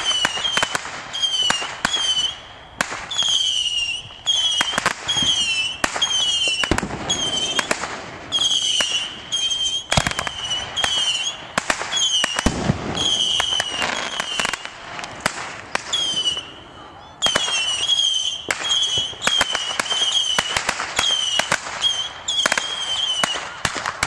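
Consumer aerial fireworks going off shot after shot, each a short, slightly falling whistle with sharp bangs, about one to two a second. A deeper boom comes about halfway through, and there is a short lull about two-thirds in.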